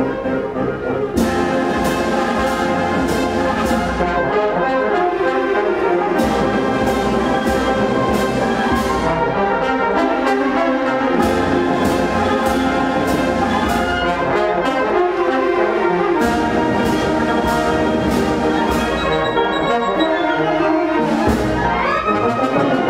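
Brass band music: brass instruments play a sustained melody over regular percussion strikes, about three a second, that come and go in spells.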